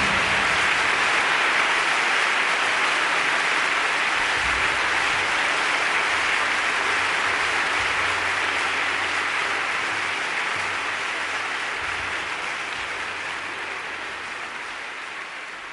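Audience applause, dense and steady, that slowly fades out.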